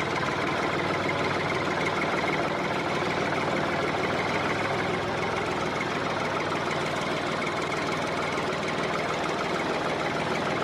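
Tractor engine idling steadily, a constant knocking engine hum.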